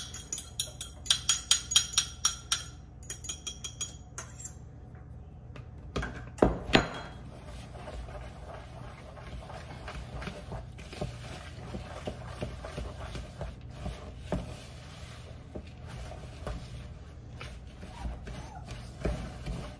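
A fork clinking and scraping against a mixing bowl as wet ingredients are stirred into dry ones to make cookie dough. There is a rapid run of clinks, about three to four a second, for the first few seconds, two louder knocks about six seconds in, then softer scraping.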